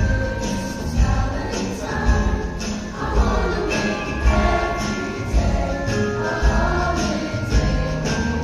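A choir singing a holiday song over jingle bells and a steady beat.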